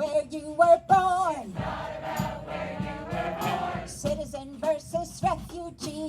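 A chorus singing live, many voices together carrying one melody; the sound thickens into a fuller blend of voices about a second and a half in.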